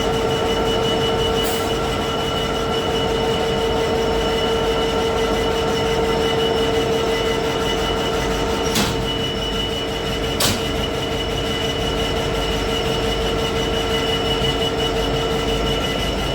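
Freight train of tank wagons rolling past, its wheels squealing on the rails in a steady, high ringing tone over the rumble. Two sharp clicks a second and a half apart come past the middle.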